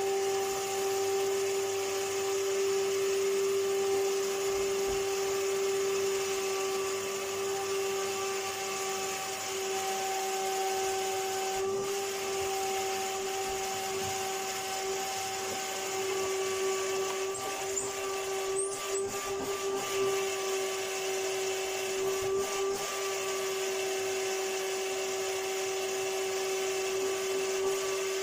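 Numatic Henry cylinder vacuum cleaner running steadily, its motor giving a constant whine, with a few faint clicks about two-thirds of the way through.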